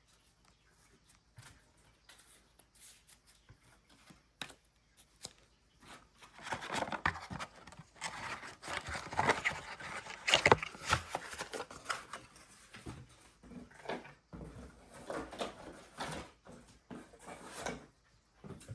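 Trading-card packaging crinkling and tearing as a pack is opened, with the cards being handled: light clicks and taps at first, then busier rustling and snapping from about six seconds in.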